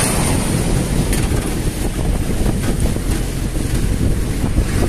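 Wind buffeting the microphone over the steady engine and road noise of an open vehicle moving along a road.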